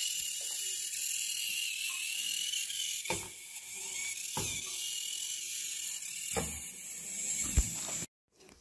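Small geared DC drive motors of a battery-powered micro:bit robot car whirring as it drives itself over a tiled floor, with a high whine that wavers in pitch and a few knocks along the way. The sound cuts off suddenly near the end.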